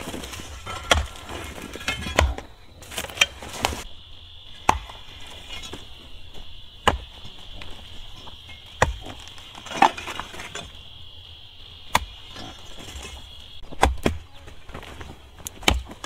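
Hand hoes chopping into a hard, dry clay bank: irregular dull strikes every second or two. A steady, high insect buzz sets in after a couple of seconds and stops shortly before the end.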